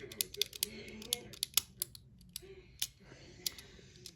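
Number wheels of a Master Lock 875D combination padlock clicking as they are turned detent by detent while the shackle is pulled, to feel which wheel binds and decode the combination. A rapid, irregular run of sharp clicks that thins out near the end.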